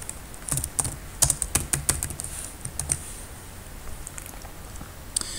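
Typing on a computer keyboard: a quick run of key clicks that thins out after about three seconds.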